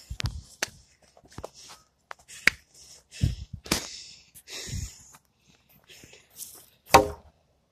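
Phone handling and movement noise: rustles, clicks and several dull thumps as the phone is jostled, with a brief voice-like call about seven seconds in.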